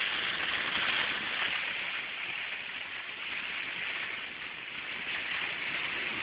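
Heavy rain and tyre spray on a flooded road heard from inside a moving car: a steady rushing hiss.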